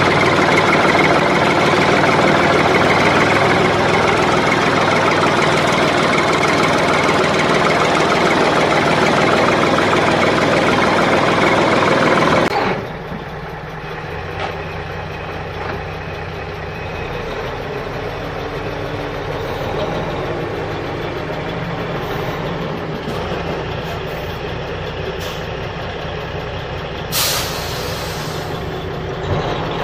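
Truck engine running steadily. About twelve seconds in it switches abruptly to a quieter, lower engine hum. A short hiss comes near the end.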